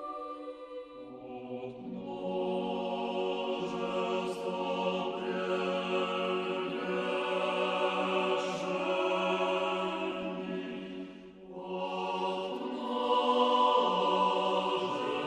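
Choir singing a slow chant in long, held chords, with a brief break between phrases about eleven seconds in.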